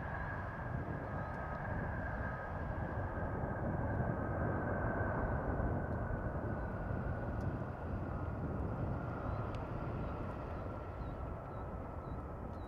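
Boeing 777-300ER's two GE90 turbofans during the landing rollout: a steady jet roar that swells in the middle and then eases, with a high whine slowly falling in pitch as the airliner slows on the runway.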